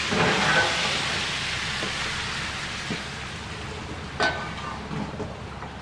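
Car tyres hissing through wet slush on the street, loudest at first and slowly fading. A single sharp metallic clank with a brief ring about four seconds in.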